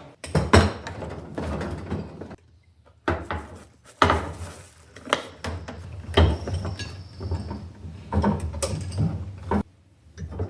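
Tools and metal parts being handled: irregular clattering, clicking and knocking, with a brief pause about two and a half seconds in. The sound cuts off abruptly near the end.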